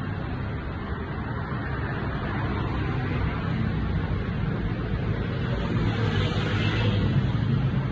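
Steady low rumble of road traffic, growing a little louder in the second half.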